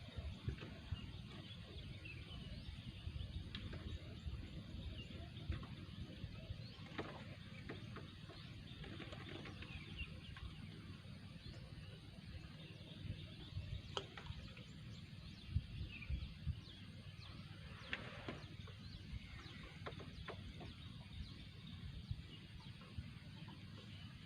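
Outdoor ambience of faint, scattered bird chirps over a steady low rumble, with a few sharp clicks.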